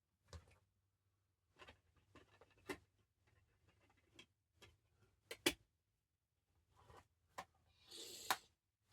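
A plastic DVD case and disc being handled: faint, scattered clicks and taps, the sharpest about five and a half seconds in, and a short rustle near the end.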